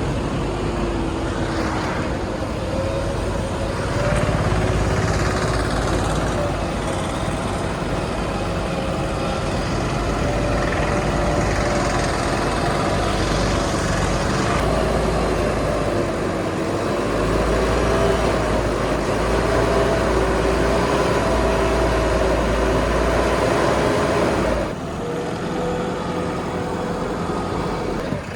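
Backhoe loader's diesel engine running hard under load, its pitch rising and falling as the operator works the hydraulics, with a heavy low rumble. Near the end the engine eases off and runs quieter.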